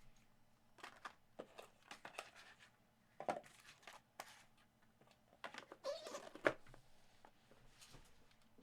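Trading cards and their packaging being handled: light crinkling, rustling and small clicks, a little louder about three seconds in and again around six seconds.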